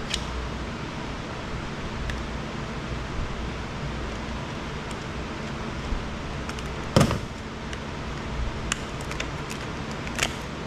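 Pliers working a small power board free from an Apple Wi-Fi unit's plastic case: scattered small clicks and one sharp snap about seven seconds in, over steady background noise.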